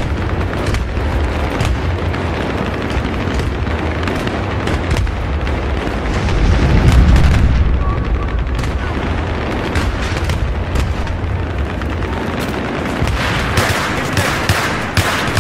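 Battle sounds of explosions and gunfire: a continuous low rumble with scattered shots, a louder boom swelling about seven seconds in, and rapid gunfire building near the end.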